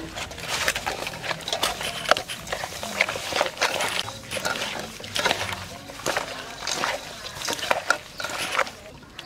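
Hands rubbing and churning eels with coarse salt in a stainless-steel bowl: irregular wet squelching and gritty scraping, the salt scouring the slime off the eels.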